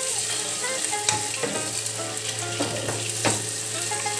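Whole peeled hard-boiled eggs frying in hot oil in a pan, sizzling steadily, with a few light knocks as the eggs are moved around in the pan.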